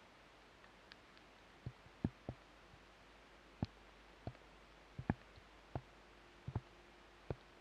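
Raindrops tapping on a waterproof action-camera housing: sharp single ticks at irregular intervals, about a dozen, over a faint steady hiss.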